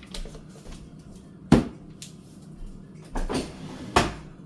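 Kitchen handling sounds: two sharp knocks, about a second and a half in and again near the end, with lighter clatter between, like a door shutting or dishes being set down.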